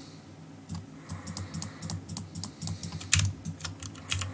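Computer keyboard and mouse clicking in an irregular patter of short keystrokes, with a burst of louder clicks about three seconds in.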